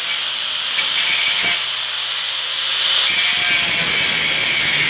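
Handheld angle grinder cutting into the metal edge of a vehicle door, a steady high whine and hiss that grows louder about three seconds in.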